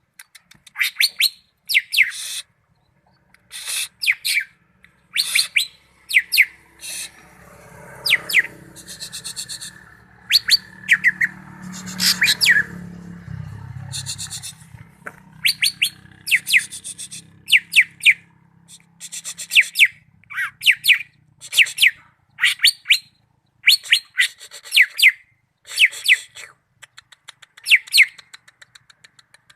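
Cucak ijo (green leafbird) singing in short, sharp, whistled phrases, repeated about once a second. A low hum sits underneath for several seconds in the middle.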